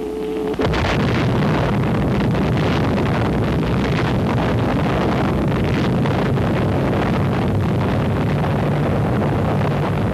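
Atomic bomb explosion on a newsreel soundtrack. A steady tone cuts off about half a second in as a sudden loud blast begins, and it goes on as a continuous deep rumble that holds steady.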